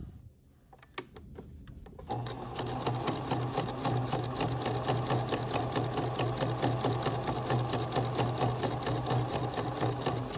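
Domestic electric sewing machine running a long gathering stitch: steady motor hum with rapid, evenly spaced needle strokes. It starts about two seconds in, after a couple of soft clicks, and stops just before the end.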